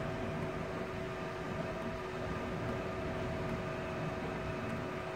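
Steady machine hum with two steady tones over a low rumble, unchanging throughout.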